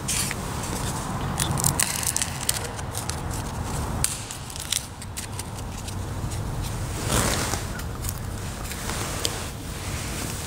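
Close-miked handling noise from altar vessels being moved and touched: scattered sharp clicks and crackles, mostly in the first few seconds, and a short scraping rustle about seven seconds in, over a steady low rumble.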